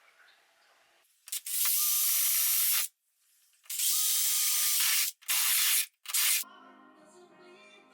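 Four loud bursts of pressurised spray hiss with short gaps between them: two of about a second and a half each, then two shorter ones. Music comes in near the end.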